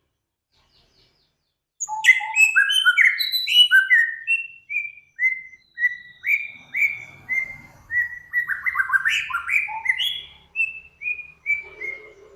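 Songbird singing after a short silence: a burst of quick, varied chirps about two seconds in, then a run of clear whistled notes, each slurring downward, roughly two a second, with another quick burst near the end.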